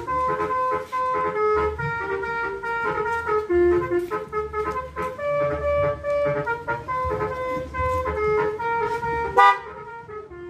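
Basuri electric melody horn playing a tune of quick stepping notes over a low engine rumble. It ends with one loud short blast about a second before the end, then the tune stops.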